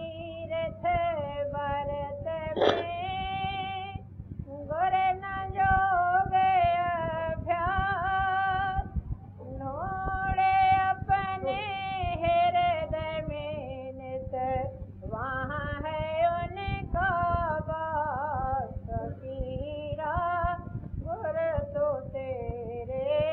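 A single voice singing slowly, holding long, wavering notes in phrases of a few seconds each, over a steady low hum. A sharp click sounds near the start.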